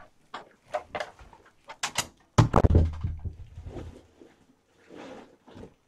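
A run of knocks and clatters, with one loud, heavier thump about two and a half seconds in.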